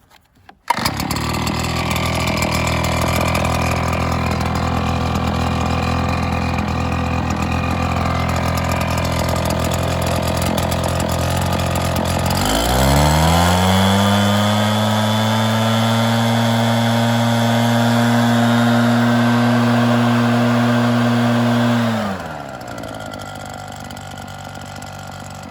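Redmax commercial gas leaf blower engine cutting in about a second in and idling steadily, then revved up to full throttle about halfway through, held there for several seconds, and throttled back down to idle near the end.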